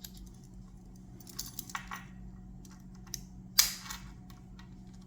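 Small metal tools of a Swiss Army knife being handled: light ticks and taps, then one sharp metallic snap about three and a half seconds in as a spring-loaded tool clicks into place.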